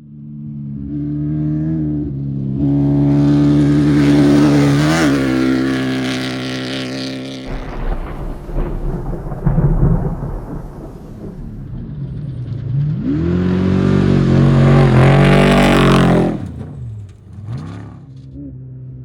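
Off-road race vehicle engines passing. A steady engine note runs for the first seven seconds or so, then gives way to a rushing rumble. In the last third comes engine revving that rises and falls in pitch, then fades.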